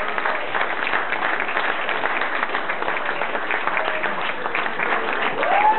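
Audience clapping and applauding steadily, with a short rising-and-falling call near the end.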